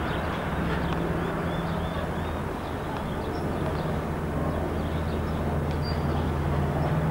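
Steady low hum of a stationary single-deck electric suburban train (a 'red rattler' type set) standing at the platform, its pitch constant and growing a little stronger near the end, with a few faint, short high chirps over it.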